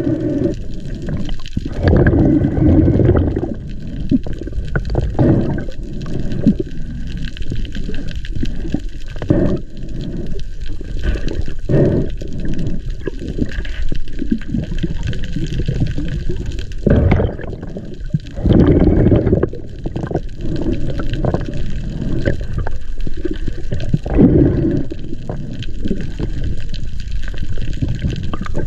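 Water sloshing and gurgling right at a spearfisher's camera in the sea, with several louder surges of churning water.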